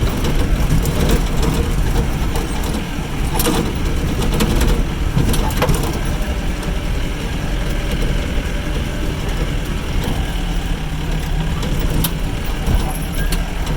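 Jeep engine running with a steady low rumble as it drives over a rough off-road track, with a few knocks and clatters as the vehicle jolts.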